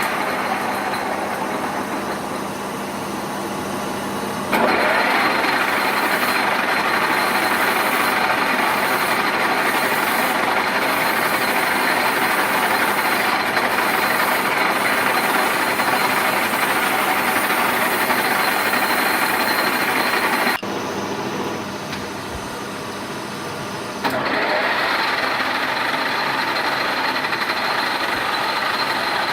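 K62 metal lathe running under power, a loud, steady mechanical whir from its headstock gearing and spindle. It gets louder about four and a half seconds in, drops back briefly a little after twenty seconds, and rises again about three and a half seconds later.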